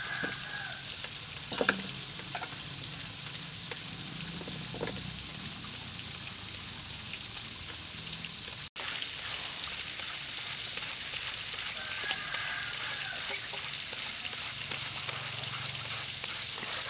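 Hand peelers scraping the skin off green mangoes, with a sharp knock about two seconds in; after a cut, a julienne peeler rasps the mango into thin shreds over a steel bowl. A steady hiss runs underneath.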